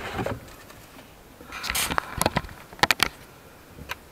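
Handling noise inside a car trunk: a brief rustle, then a run of sharp clicks and knocks, three in quick succession about three seconds in and one more near the end.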